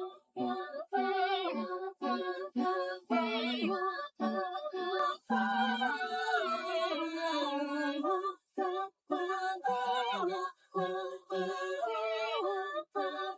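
A high male voice singing solo in short, sustained phrases with wide vibrato and brief pauses between them, with little or no accompaniment heard.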